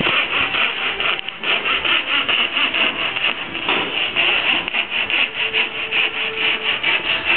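Fine fretsaw blade of a chevalet de marqueterie sawing through wood in a quick, even rhythm of strokes as it follows a cutting line.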